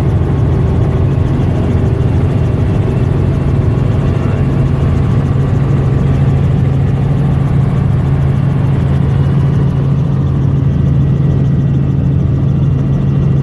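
Helicopter engine and rotor running steadily in flight: a loud, constant low hum with a fast even pulsing.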